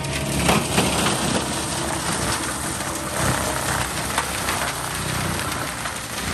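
Gyro-Trac 500HF forestry mulcher head on a CAT compact track loader grinding brush and woody debris at ground level: a dense, continuous crackling and chewing over the loader's diesel engine running hard.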